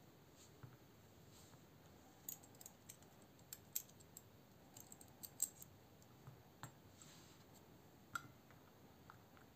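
Faint small metallic clicks and taps from handling a folding knife's steel liner and small parts, a quick scatter of them from about two seconds in to six seconds in, with a few single clicks after.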